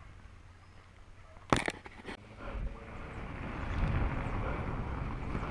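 A car approaching on a dirt road, its engine and tyre noise growing steadily louder from about two and a half seconds in. A single sharp click about a second and a half in.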